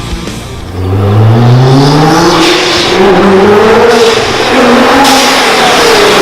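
Car engine revving hard under acceleration: its pitch climbs steeply about a second in, then rises and falls in long sweeps.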